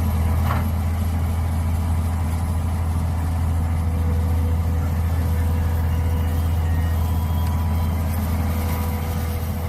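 Mini excavator engine running steadily with an even, low hum.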